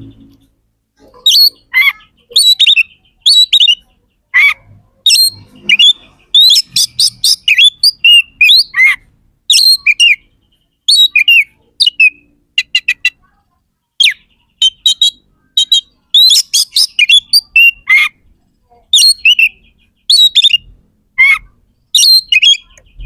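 Oriental magpie-robin (kacer) in full, loud song: short phrases of sweeping whistled notes and rapid stuttering note runs, one after another with brief pauses between.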